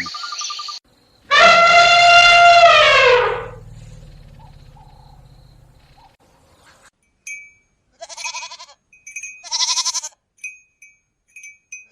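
Animal calls: one loud, long, pitched call that holds steady and then falls in pitch, followed a few seconds later by several short higher calls.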